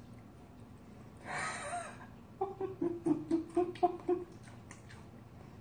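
A woman laughing: a breathy outbreath about a second in, then a quick run of about eight short giggles.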